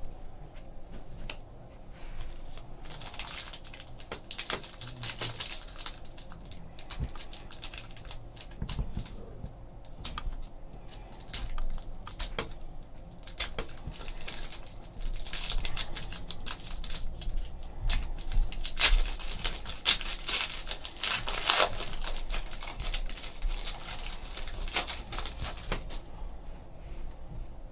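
Trading cards and pack wrappers being handled: irregular rustling and small clicks as cards are slid and flipped through, busiest in a few stretches of a few seconds each.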